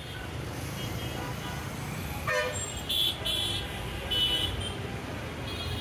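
Heavy, congested road traffic: a steady rumble of engines with several vehicle horns honking, short toots about two, three and four seconds in and a longer honk near the end.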